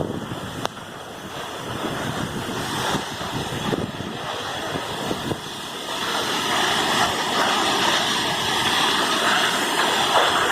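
Waterfall: a steady rush of falling water, growing louder about six seconds in.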